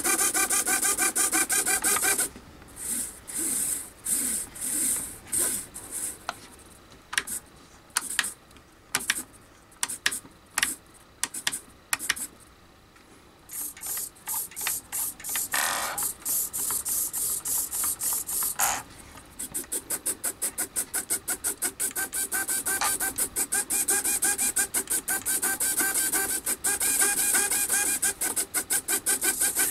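Two Bluearrow D0474HT-HV servos driving an ornithopter flapping mechanism back and forth, each stroke a short whirring buzz from the servo gears. The flap rate changes as the transmitter settings are moved: fast and continuous at first, then slower separate strokes from about two seconds in, then a rapid even rhythm from about twenty seconds in.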